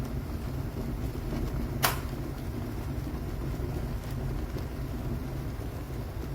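Hamilton Beach glass electric kettle heating water: a steady low rumble as the water comes up toward the boil, with one sharp click about two seconds in.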